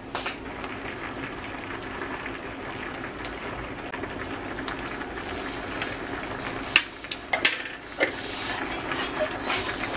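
Spicy fish-cake and tofu stew simmering in a pot, bubbling steadily, with a few sharp clinks from a metal ladle in the pot about seven to eight seconds in.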